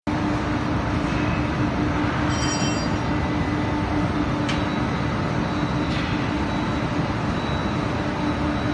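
Loose fiber conveyor dryer running: a steady, even machine noise with a constant hum, and a few faint clicks.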